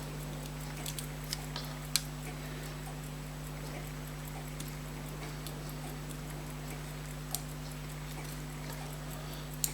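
A few light, irregular clicks of small metal tools and watch parts being handled while a fusee pocket watch is stripped down, over a steady low hum.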